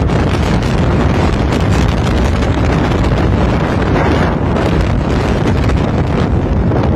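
Strong wind from a tornado buffeting the microphone: a loud, steady low rumble of gusting wind.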